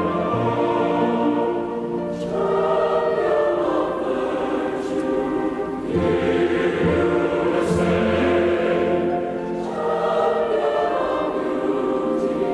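Background music: a choir singing long held chords that change every few seconds.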